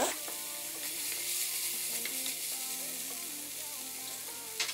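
Onions, tomatoes and cashew nuts frying in a nonstick pan with a steady sizzling hiss while they are stirred through, and a sharp knock near the end.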